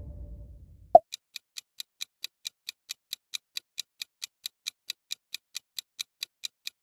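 A low rumble fades out over the first second and is cut off by a sharp click. Then a countdown timer ticks steadily, about three ticks a second.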